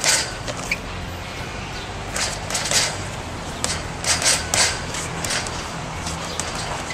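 A boxer throwing punches: short sharp sounds come in quick bursts, a cluster of three just past the middle, over a steady low background rumble.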